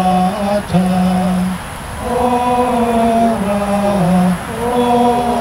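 A small group of men singing a slow Latin hymn to Mary in unison, with long held notes that step up and down in pitch. There is a short breath break about two seconds in.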